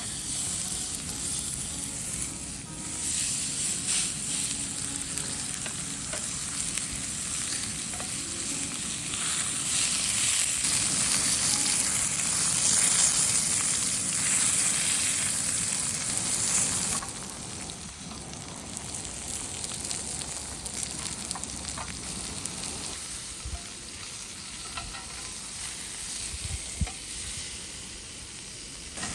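Food sizzling and crackling in a frying pan. It grows louder partway through, then drops off sharply a little over halfway.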